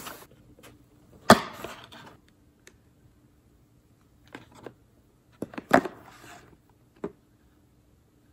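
Makeup packaging and a cardboard subscription box being handled and stacked: a sharp knock about a second in with a short rustle after it, then clusters of small clicks and taps in the second half.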